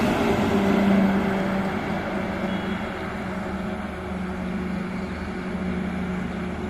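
Heavy multi-axle goods truck passing close at highway speed: diesel engine drone and tyre noise, loudest about a second in, then fading as it pulls away, with a steady low engine hum continuing.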